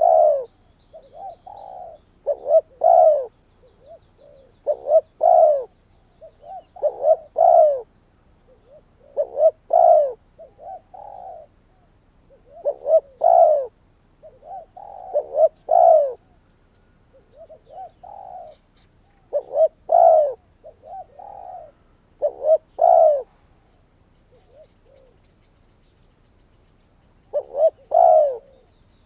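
Spotted dove cooing: repeated phrases of a few soft notes ending in louder coos, every two to three seconds, with a pause of a few seconds near the end.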